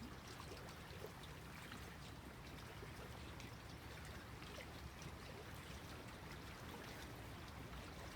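Small waves lapping at a lakeshore: a faint, steady wash of water with small scattered splashes.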